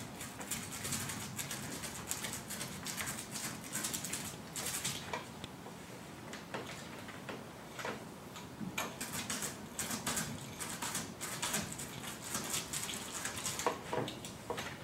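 Small paint roller spreading thick bed liner coating over a corrugated truck bed: an uneven wet, sticky crackle in short strokes, with a lull in the middle while the roller is reloaded in the tray.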